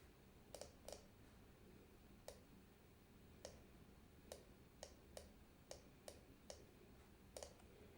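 About a dozen faint, single clicks at irregular intervals from working a computer's mouse or keys, over near silence.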